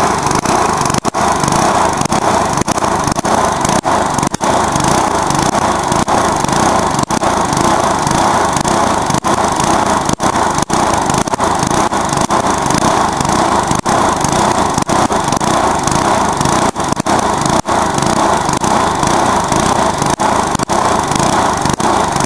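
Briggs & Stratton lawnmower engine running loud and steady, being run hard to blow it up, its note dipping briefly now and then.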